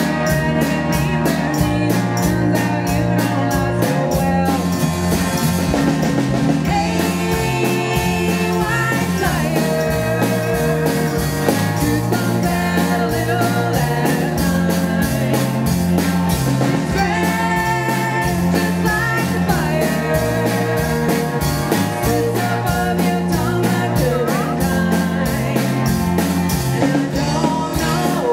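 Rock band playing live: electric guitar, bass guitar and drum kit with a steady beat, and voices singing.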